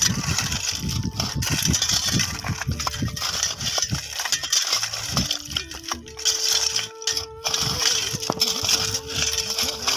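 Metal shovel blades scraping and clinking into stony gravel as several people dig at once, with irregular crunching strikes against stones.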